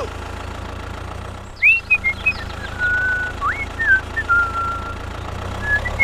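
Steady low engine hum, with a few whistled notes over it from about a second and a half in: quick upward slides and short held notes.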